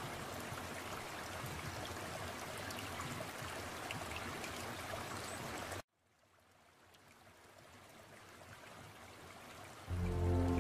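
Steady flow of running water. About halfway through it cuts off abruptly, then fades gradually back in, and music comes in near the end.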